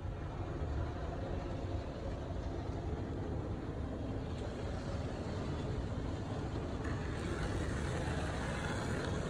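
Automatic tunnel car wash heard from inside the car: a steady rushing of water spray and spinning cloth wash brushes against the car body. The hiss grows brighter about halfway through and again near the end as the brushes reach the car.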